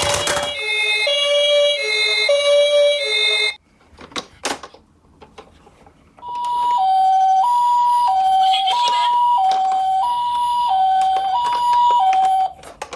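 Toy ambulance minicar's electronic two-tone "pee-po" siren, the Japanese ambulance pattern. A lower-pitched siren alternates for the first few seconds, stops with a few clicks, then a higher two-tone siren switches between its notes about every 0.8 s until near the end.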